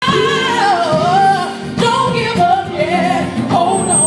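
Female gospel vocal group singing together into microphones, voices amplified through a sound system.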